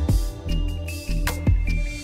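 Background music: sustained pitched tones over a deep bass, with sharp drum-like hits a few times.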